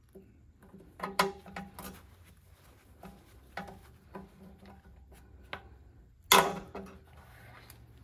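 Irregular metal clicks and light scrapes as a dipstick is worked out of the oil fill tube of an old Briggs & Stratton engine and handled, with one louder knock about six seconds in.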